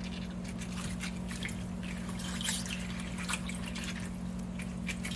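Water dripping and splashing lightly in a bowl as rice cakes are lifted out of it by hand: many small irregular drips. A steady low hum runs underneath.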